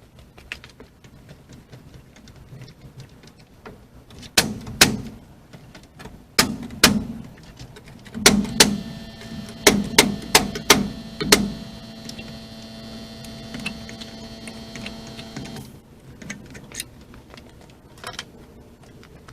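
About a dozen sharp knocks, irregularly spaced and mostly in quick pairs and runs, like hammer blows on construction lumber. A steady ringing tone runs under the later blows and stops suddenly.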